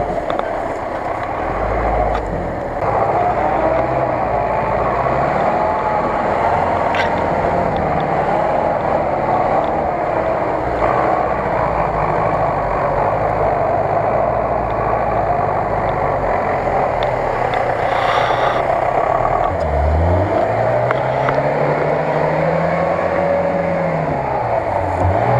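Off-road engines working in deep mud: a GAZ-66 truck's engine running steadily under load. Later an engine revs up and falls back twice.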